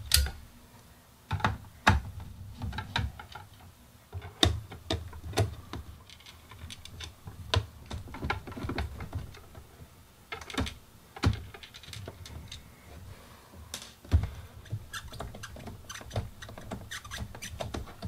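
Irregular clicks and knocks of a long screwdriver removing the screws from the plastic body shell of an Olympia Reporter electric typewriter, with a few louder knocks as the shell is handled.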